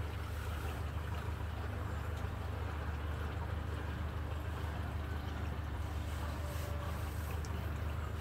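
Front-loading washing machine running a delicate wash: the drum turns slowly, tumbling wet laundry with water sloshing over a steady low motor hum.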